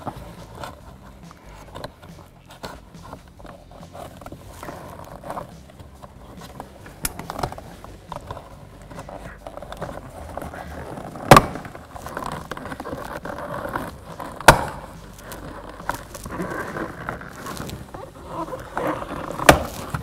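Plastic door-trim piece being prised up with a plastic trim tool: scraping and creaking plastic with small clicks, then two loud sharp snaps about 11 and 14 seconds in as its retaining clips let go, and a smaller snap near the end.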